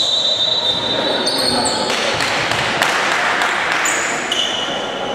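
Basketball game on a hardwood court: sneakers squeaking, the ball bouncing, and voices of players and spectators.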